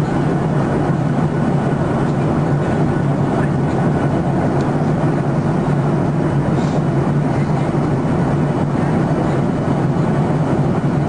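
Steady cabin noise of a Boeing 737 airliner in flight, heard inside the passenger cabin: jet engine and airflow noise as a constant low hum under an even hiss.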